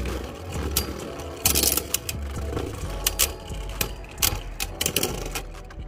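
Beyblade spinning tops whirring in a plastic Beyblade stadium, with sharp clacks at irregular intervals as they strike each other or the stadium wall.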